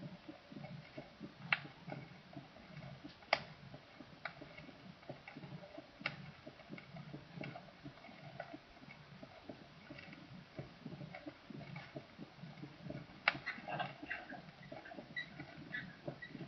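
Faint recorded heart sounds heard through a stethoscope: dull low thumps in a quick, steady rhythm, with a few sharp clicks over them.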